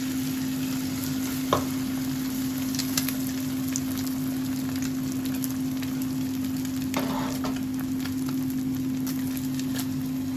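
Food sizzling in a frying pan as it is stirred, with a utensil knocking against the pan a few times, the sharpest about a second and a half in. A steady low hum runs underneath.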